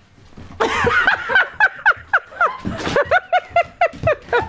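People laughing: a long run of quick 'ha' syllables, each falling in pitch, starting about half a second in.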